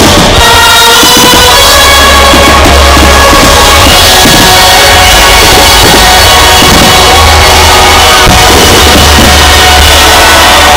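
Loud show music with drums and a deep sustained bass, pinned at the top of the recording's level. Irregular thuds of firework bursts sound through it.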